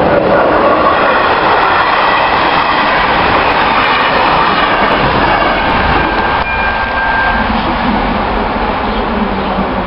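Express passenger train's coaches rushing past over a level crossing, wheels running on the rails. The noise eases after about six seconds as the last coaches clear the crossing.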